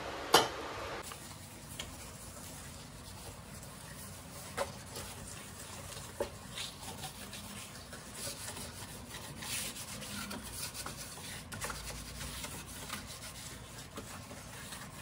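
A scrub pad rubbing back and forth over a soapy gas stove top in a steady scraping scrub. A single sharp metal clink comes about half a second in.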